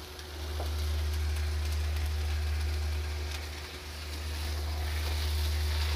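Spiced masala frying in a pan, a light, even sizzle over a steady low hum.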